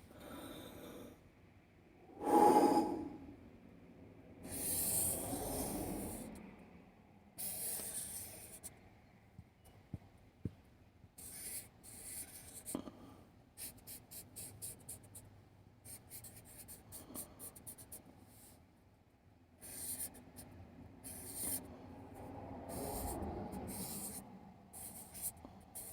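Pen or pencil scratching over paper in short strokes and scribbles, with pauses between. A louder short noise about two and a half seconds in.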